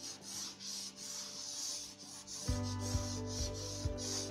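Chalk rubbing on a chalkboard in quick, repeated curved shading strokes, about three a second, as a circle is coloured in. A steady low hum of several tones comes in a little over halfway through.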